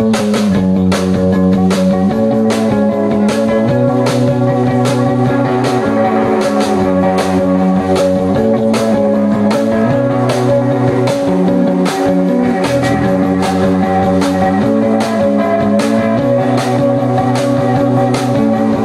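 Live rock band playing: electric guitars over a drum kit keeping a steady beat, about two hits a second, with a riff that repeats every couple of seconds.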